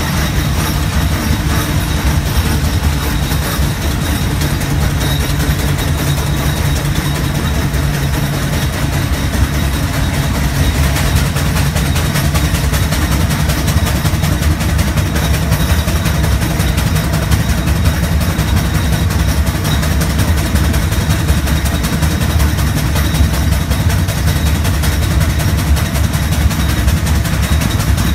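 Garrett steam traction engine climbing a hill under load: a loud, steady run of engine and road noise with a strong low rumble.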